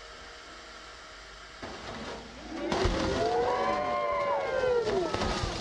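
A roughly 20-ton, multi-block ice sculpture collapsing: a first noise about one and a half seconds in as it starts to give way, then a loud crash of heavy ice breaking and tumbling about a second later. Many onlookers cry out over the crash.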